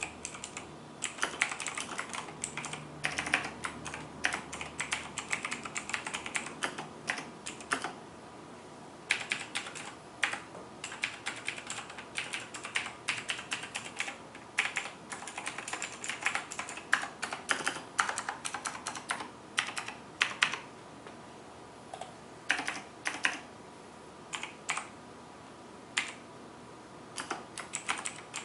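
Typing on a Razer BlackWidow Chroma mechanical keyboard with clicky Razer Green switches: fast runs of sharp key clicks, broken by a few brief pauses.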